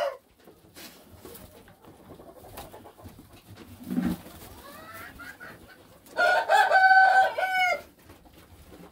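A rooster crows once, loud and long, starting about six seconds in. Before it come fainter short calls from the flock.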